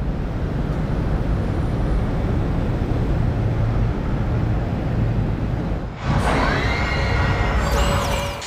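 A steady low rumble. About six seconds in it gives way to the running of an industrial robot arm: its servo motors whine, rising and falling in pitch, with faint mechanical ticks.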